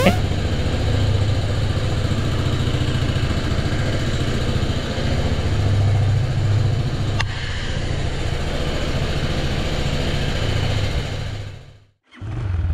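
Motorcycle engine idling steadily, fading out near the end.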